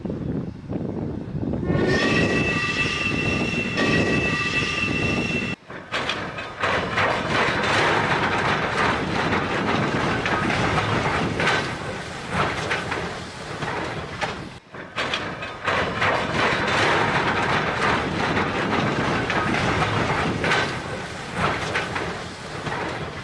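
A train horn sounds one steady chord for about three and a half seconds, then a train runs by with its wheels clattering on the rails. The sound breaks off abruptly twice, at cuts between clips.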